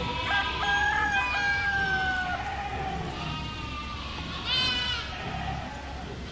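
A flock of sheep bleating: several drawn-out calls overlap in the first two seconds or so, and one short bleat comes a little after halfway through.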